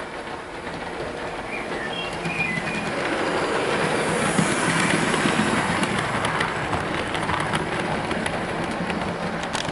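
Hornby J36 OO-gauge model locomotive and its coaches running past on the track: the wheels click and rumble over the rails, growing louder as the train passes close about four to six seconds in, then easing off. With its TTS sound decoder removed for DC running, only the mechanical running noise is heard, not any synthesised steam sound.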